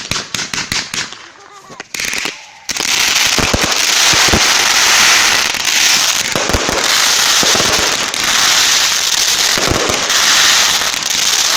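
Fireworks battery firing: a quick string of sharp bangs, then from about three seconds in a dense, continuous crackling with occasional deeper thumps.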